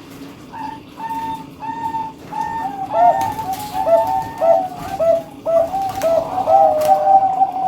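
Several birds calling over one another with short whistled notes repeated about twice a second, getting busier and louder from about three seconds in.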